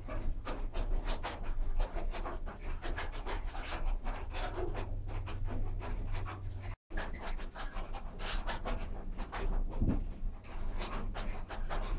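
The wooden machinery of a hollow post drainage mill running at an easy pace: a dense, irregular clatter of knocks and creaks over a steady low rumble.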